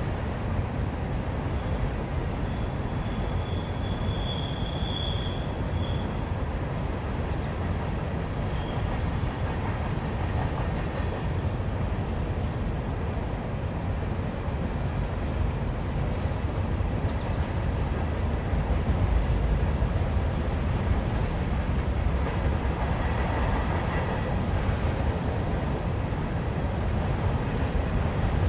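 CSX empty coal train rolling past, a steady rumble of wheels on rail with a brief high squeal about four seconds in. The rumble grows louder in the second half.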